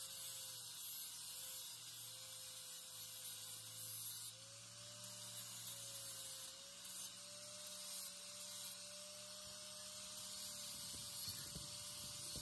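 Electric angle grinder running with a sanding disc, grinding down the weld on a steel pipe fitting: a steady motor whine that wavers as the disc is pressed on, over the hiss of abrasive on metal.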